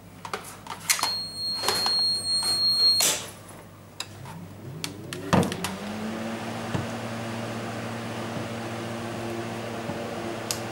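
Plastic clicks and knocks from handling a wired switch box during the first three seconds. About five seconds in there is a click, then the cold room's refrigeration unit starts: a motor spins up with a rising hum and settles into a steady hum.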